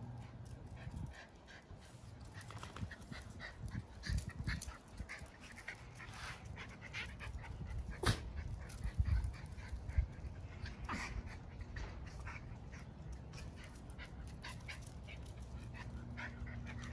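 Miniature Schnauzer puppy whimpering and panting in scattered short, high squeaks, with a single sharp click about eight seconds in.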